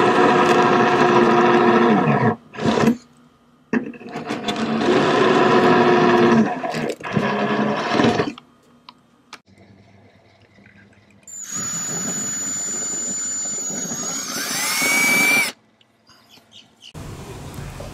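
Cordless drill boring through cured epoxy plugs in a fibreglass deck, in three runs of a few seconds each. The first two wind down in pitch as the trigger is released, and in the third the motor's pitch rises near the end before it stops.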